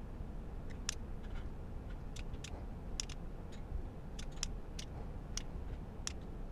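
Small sharp mechanical clicks from the control knob of a QRP Labs QMX+ transceiver as it is turned and pressed to scroll through the radio's menu settings, about a dozen clicks at an uneven pace over a steady low background noise.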